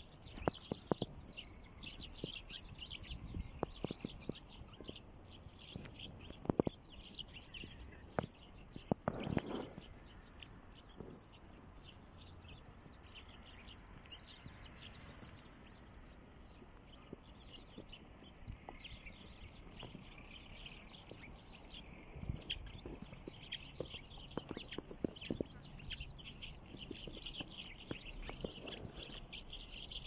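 A flock of sparrows chirping, a dense chatter of many overlapping short chirps that thins out in the middle and builds again near the end. Scattered soft knocks and a brief low rumble about nine seconds in.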